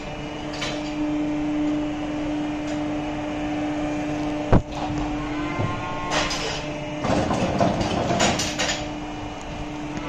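Steady mechanical hum of the Varmo feeding machine running in the cattle barn. There is a sharp knock about four and a half seconds in, then rustling and clattering from the cattle feeding at the metal feed barrier between about six and nine seconds in.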